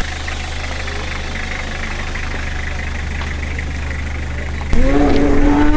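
Pickup truck engine running at a steady low idle. Near the end a louder voice cuts in with one long held note.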